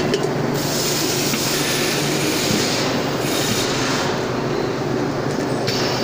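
Pad printing machine running: a steady mechanical hum with a hiss that comes and goes twice.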